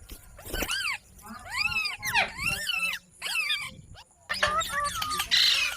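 Parrot calling in a string of short calls that rise and fall in pitch, with brief pauses between them, ending in a louder harsh squawk near the end.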